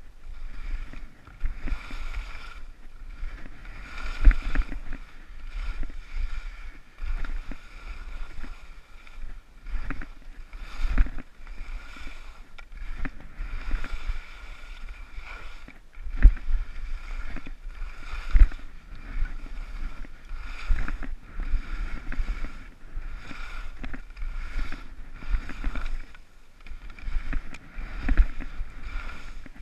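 Skis scraping and swishing over hard, bumpy snow through moguls, in uneven surges with irregular low thumps as they hit the bumps.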